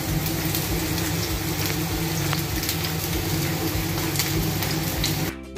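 Potato chunks sizzling steadily in hot oil in a frying pan, with light ticks of a wooden spatula turning them. The sizzle cuts off abruptly just before the end, giving way to music.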